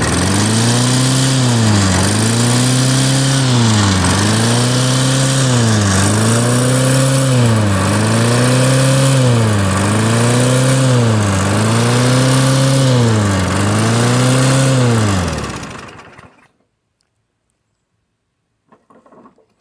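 Briggs & Stratton Classic lawn mower engine running and surging: the revs rise and fall evenly, about once every two seconds, eight times over, before the engine dies about sixteen seconds in. The governor spring has been rehooked with only light tension, and the surging goes on even though, by the owner's account, the carburetor is clean and the gas fresh.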